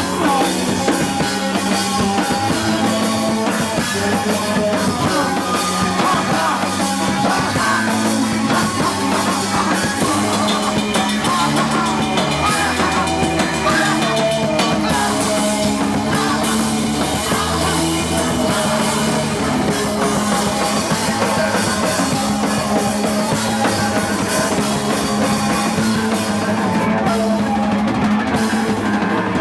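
Rock band playing live and loud, drum kit driving a fast beat under amplified instruments, continuous throughout.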